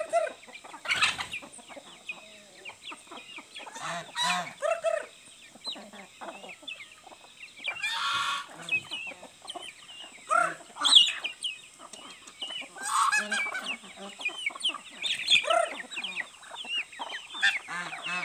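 Free-range chickens clucking and calling, many short calls scattered throughout, with one longer, harsher call about eight seconds in.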